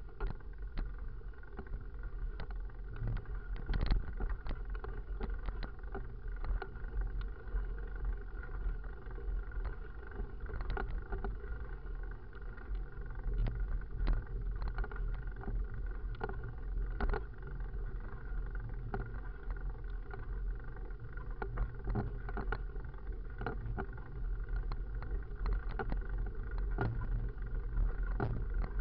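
Full-suspension mountain bike rolling over cracked, potholed asphalt: a steady low rumble of tyres and wind on the bike-mounted camera's microphone, broken by frequent small knocks and rattles as the bike hits the bumps.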